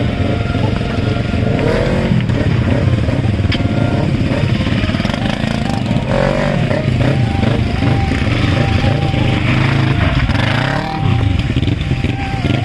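Several motorcycle engines running together, revved up several times as the bikes pull away one after another.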